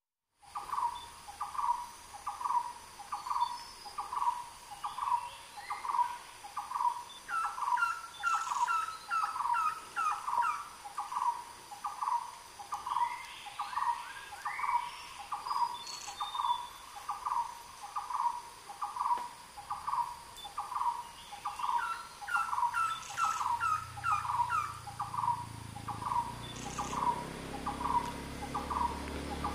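Red-headed trogon calling: a long, even series of short, mellow notes, about three every two seconds. Twice, a run of quicker, higher falling notes is layered over it. A low rumble grows in the last few seconds.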